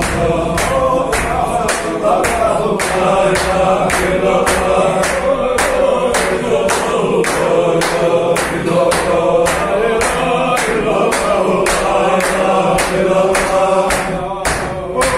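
Men's circle zikr: a group of male voices chanting a Sufi dhikr in unison, over steady rhythmic hand-clapping at about three claps a second.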